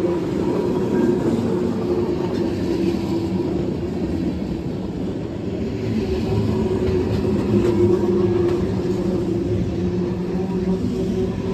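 Freight train of tank cars rolling past close by: a steady rumble of steel wheels on the rails, with a low hum running through it.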